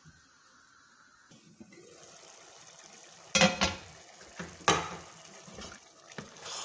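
Rice in oily tomato liquid being stirred with a spoon in an aluminium pot, with several sharp knocks of the spoon against the pot, the loudest about halfway through.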